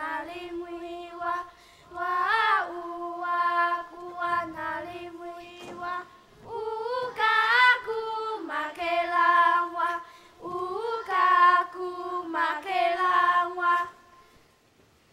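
A child's solo voice singing slow, held phrases with short pauses between them, unaccompanied, and stopping about a second before the end.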